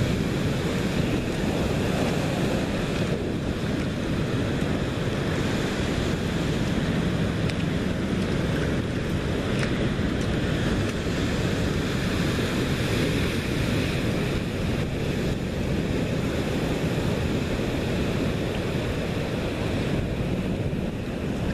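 Ocean surf breaking on a rocky reef, a steady rushing roar, with wind buffeting the microphone.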